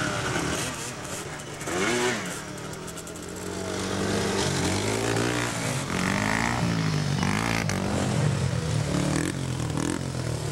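Dirt bike engines running and revving, their pitch rising and falling again and again, with one rev climbing sharply about two seconds in.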